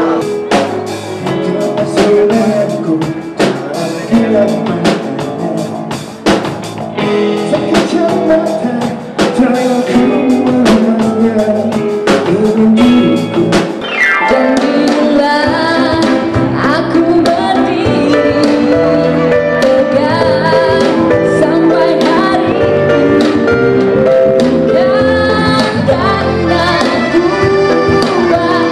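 Music; about halfway through it changes to a woman singing into a microphone with a live band accompanying her.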